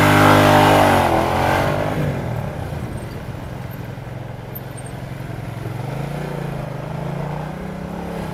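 Motorcycle engine revving hard in the first second or so, its pitch rising then dropping off. It then runs lower and steadier, and climbs in pitch again near the end as the bike accelerates through traffic.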